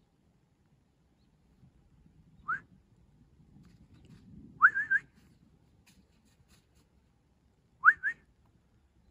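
A person whistling to call a dog back: short rising whistles, one about two and a half seconds in, a quick run of three a couple of seconds later, and a pair near the end.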